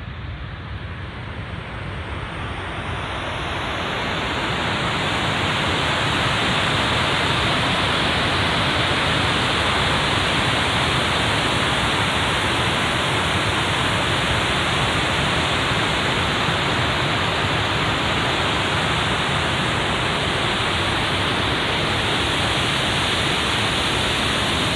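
Water pouring over a dam's overflow: a steady rushing that grows louder over the first few seconds, then holds even.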